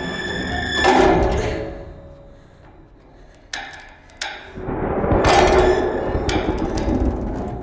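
Heavy metallic bangs and clatter from a construction hoist's steel cage: one loud bang about a second in, two sharp knocks a few seconds later, then a long loud rattling clatter through the second half.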